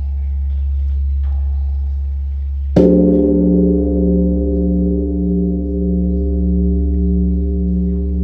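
Large Korean Buddhist temple bronze bell (beomjong) struck once about three seconds in. It then rings on with a low, evenly pulsing hum as it slowly dies away. The ring of the previous stroke is still sounding before the strike.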